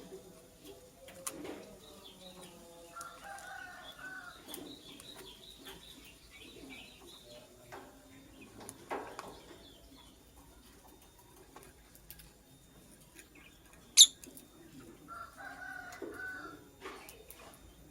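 Lovebird chirping in quick runs, with two short pitched calls and scattered small clicks and rustles. About fourteen seconds in, a single sharp click stands out as the loudest sound.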